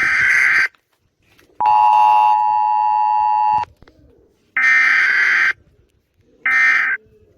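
Emergency Alert System tones: a harsh data burst, then a steady two-tone attention signal for about two seconds, then two more harsh data bursts, the last one shorter.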